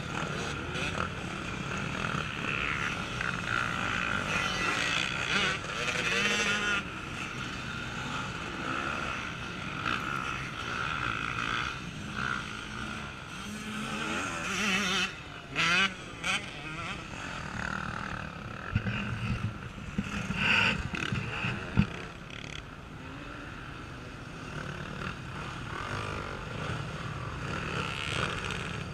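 Off-road racing dirt bikes' engines revving up and down as riders work through a log section, several bikes in turn. The loudest bursts of revs come about halfway through and again a few seconds later.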